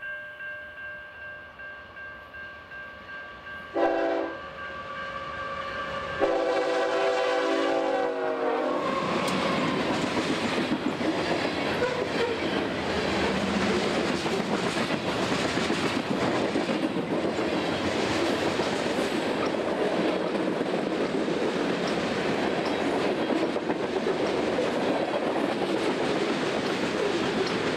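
Freight train passing: a locomotive bell ringing at first, then a short horn blast about four seconds in and a long horn blast from about six to nine seconds that sags in pitch as the locomotive goes by. After that comes the loud, steady rolling noise and wheel clatter of a long string of covered grain hopper cars.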